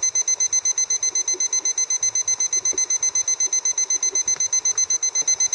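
Digital probe thermometer's alarm beeping rapidly and steadily at a high pitch, signalling that the water has reached the 212°F boil; it cuts off suddenly at the end.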